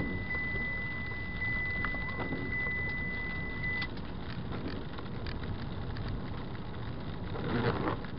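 Car cabin noise while driving through standing rainwater on a flooded road: a steady low rumble of engine and tyres. A thin steady high tone stops about four seconds in, and a short louder burst of noise comes near the end.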